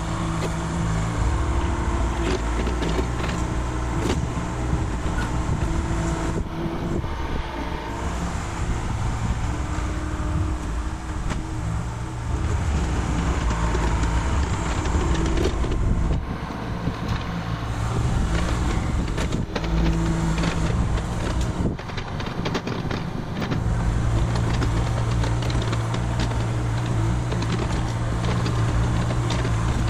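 Mini excavator's diesel engine running under work, its low steady note breaking off and returning as the machine travels and moves its arm, over a rough mechanical clatter.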